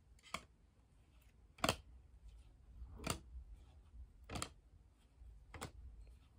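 Topps baseball cards being flipped through one at a time, each card slid from the front to the back of the stack with a sharp little snap; five snaps, about one every second and a quarter.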